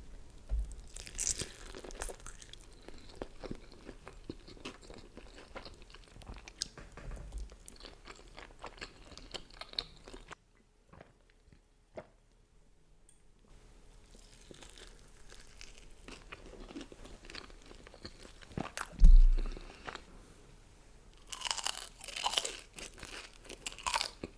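Close-miked chewing and crunching of food, with a stretch of quiet about ten seconds in. A loud thump comes a few seconds before the end, followed by louder bursts of crunching.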